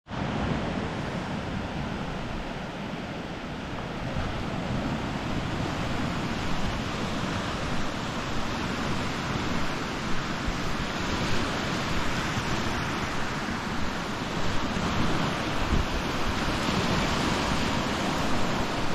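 Sea surf washing steadily onto a sandy beach, with gusts of wind buffeting the microphone.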